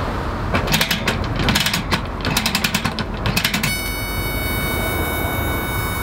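Round convection kerosene heater being lit: its wick-raising knob is turned in several runs of rapid ratcheting clicks. A little over halfway through, a steady high electric buzz from the igniter begins as the burner catches.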